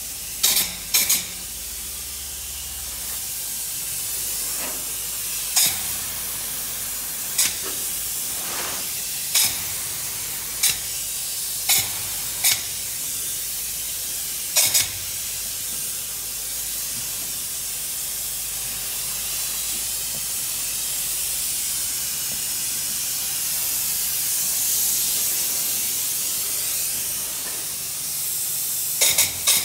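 Graco AP Fusion polyurea spray gun giving a steady air hiss, broken by short, sharp spray bursts as coating is spotted onto the wall: about ten in the first fifteen seconds and a quick pair near the end.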